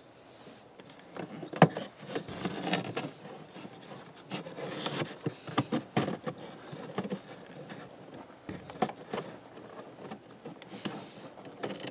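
Cabin air filter being slid and pushed into its plastic housing under the cowl panel: scraping and rustling with scattered clicks and knocks. The loudest is a sharp knock about a second and a half in.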